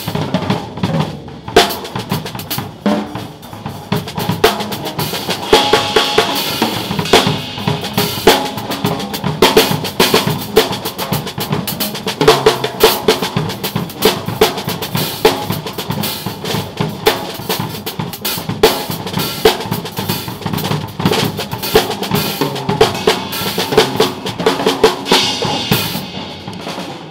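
Full drum kit played in a busy, fast pattern, with dense kick, snare and cymbal hits.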